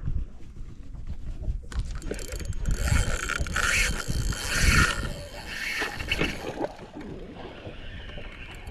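Fishing reel ratcheting and clicking as a hooked fish is fought and wound in, busiest about halfway through.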